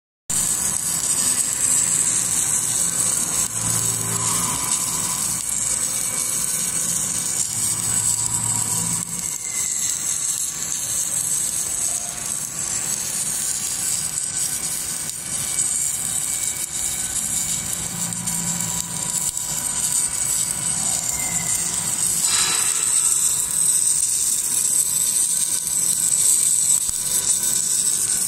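Submerged arc welding machine laying a weld bead along a steel seam under a blanket of granular flux: a steady, unbroken hiss with the machine's running noise beneath it.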